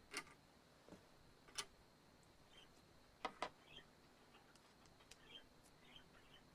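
Budgerigars chirping faintly in short calls, with a few sharp clicks from handling small hardware, two of them in quick succession about three seconds in.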